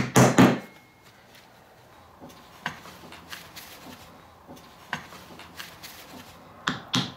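A small hammer tapping the cap onto a snowmobile idler wheel's hub to seat it, several quick light taps that stop about half a second in. A few faint handling clicks follow, and near the end a second run of taps starts on another wheel's cap.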